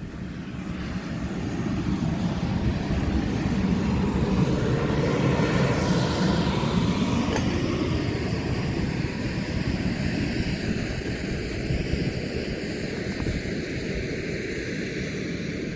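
A passing engine drone swells to its loudest about five seconds in and then slowly fades, over the steady low hum of the bouncy castle's electric blower fan.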